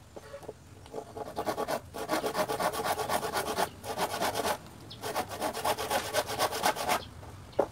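Handsaw cutting through a wooden plank: runs of quick back-and-forth rasping strokes, stopping briefly a few times between runs.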